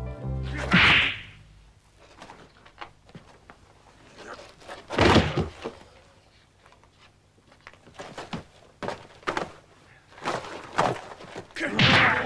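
Animated-film sound effects of a beating: a swishing lash about a second in, a heavy thud around five seconds, then a run of sharp blows in the last few seconds.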